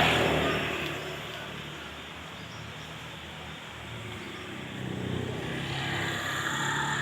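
A motor vehicle passing by, its engine noise fading away over the first second, then another vehicle's engine swelling up about five seconds in.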